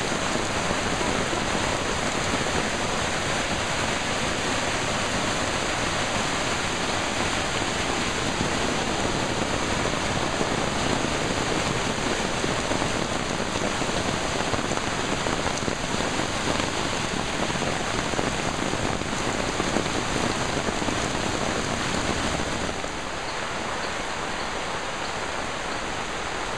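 Heavy tropical downpour: a steady, dense hiss of rain, easing slightly and losing some of its low rumble near the end.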